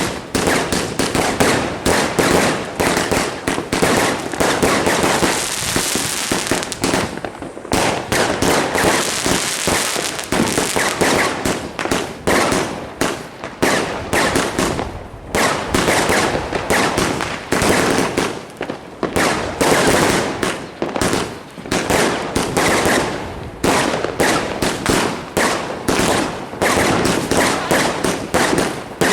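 Fireworks going off in rapid, dense volleys: a continuous run of bangs and crackling, with a high hiss twice in the first third.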